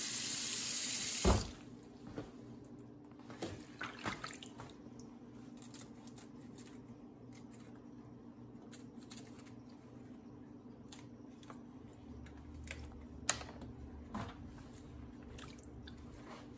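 Kitchen faucet running into a stainless steel sink of collard greens, shut off about a second in. Then faint splashes, drips and small clicks as the leaves are handled in the water, with one sharper click near the end.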